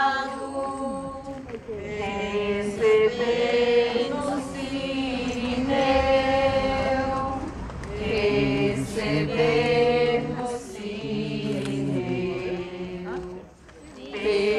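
A group of people singing a Portuguese hymn together, unaccompanied, in long held notes. The singing briefly drops away near the end, then starts again.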